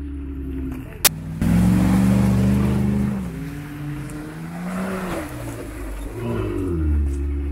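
A Ram 2500 pickup's Hemi V8 idling steadily, then a sharp click. After that, a louder off-road vehicle engine revs on the trail, its pitch rising and falling.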